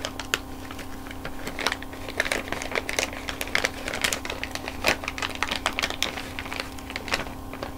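Candy-bar wrapper crinkling and crackling in irregular clicks as it is handled and opened by hand.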